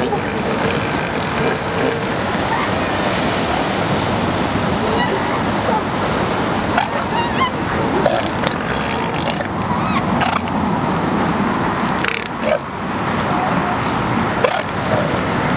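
Steady outdoor background noise with faint, indistinct voices and a few brief knocks or clicks.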